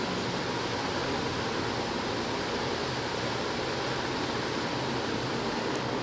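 Ceiling fan running at full speed on its smart regulator, a steady whoosh of moving air.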